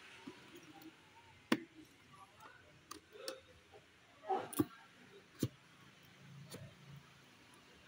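Handling noise from a new scooter shock absorber and its cardboard box: scattered light clicks and knocks, the loudest about one and a half seconds in, with a short cluster around four and a half seconds.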